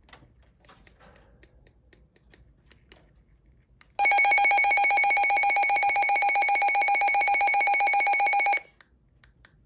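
Midland HH54 handheld weather radio sounding its alert siren: a loud, shrill electronic tone pulsing rapidly, which starts about four seconds in and cuts off abruptly after about four and a half seconds. A few faint clicks come before it.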